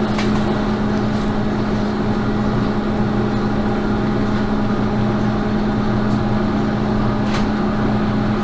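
Steady machine hum with a constant low tone, with a few faint clicks.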